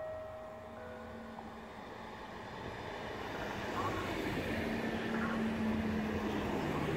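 A Koleje Dolnośląskie passenger multiple unit arriving at a platform. A two-note horn sounds at the start, then the rumble of the wheels and a low motor hum grow louder as the train draws alongside.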